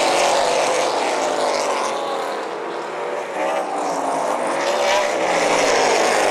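Pack of Outlaw Super Late Model race cars passing at racing speed, their V8 engines running hard. The pitch falls as each car goes by, and a fresh group comes through about three and a half seconds in.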